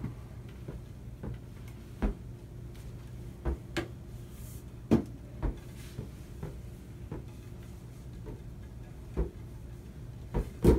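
About eight short, light knocks and taps at uneven intervals, the loudest near the end, over a steady low hum.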